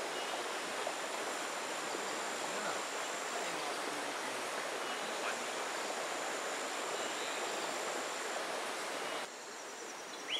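Steady rush of flowing river water, with a thin, high steady tone over it for much of the time. About nine seconds in the sound drops abruptly to a quieter background.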